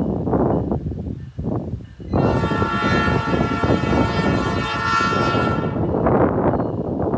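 Diesel locomotive air horn sounding one long blast of about three and a half seconds, starting about two seconds in. It sounds over the loud, noisy rush of a train passing close by.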